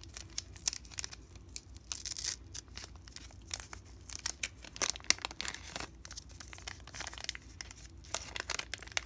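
Waxed-paper wrapper of a 1986 Topps Garbage Pail Kids wax pack being peeled open by hand along its glued seam: crinkling and tearing with many small crackles, louder in several spells.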